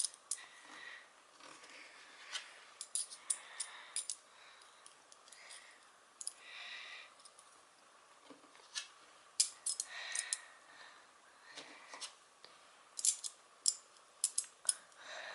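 Small metal parts being handled and fitted together by hand: scattered sharp clicks, taps and clinks, some in quick clusters, over a quiet background.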